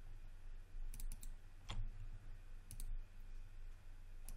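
About half a dozen separate sharp clicks from a computer mouse and keyboard as the modelling software is worked, over a low steady hum.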